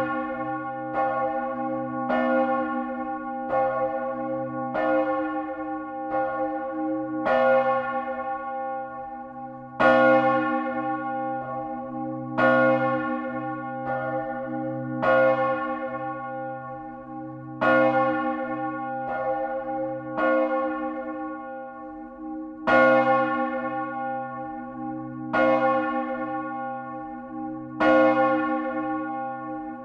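Great church bell swung in full flight, its clapper striking the bell about every 1.3 seconds with every second stroke louder, each stroke ringing on into the next with a deep hum beneath. Heard close up inside the belfry.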